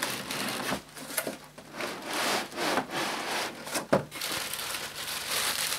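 Rustling of clear plastic wrapping and scraping of cardboard in irregular strokes as a boxed upright vacuum cleaner is worked loose from its packaging, with one sharp knock about four seconds in.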